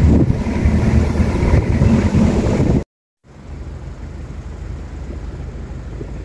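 Wind buffeting the microphone over the low rumble of a moving jeep, heard from its roof rack. About three seconds in the sound cuts out briefly and returns as a quieter, steady rumble.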